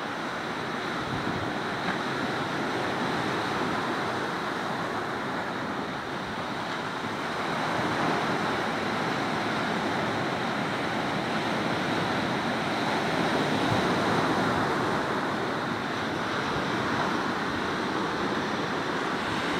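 Sea surf breaking and washing on the shore, a steady rushing that swells and eases with the breakers.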